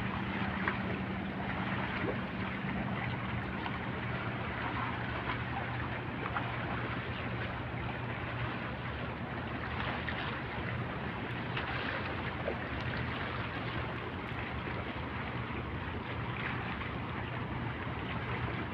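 Harbour ambience: a steady low hum from boat engines over an even hiss of wind and water. The lower hum holds steady, while a slightly higher hum fades out a few seconds in.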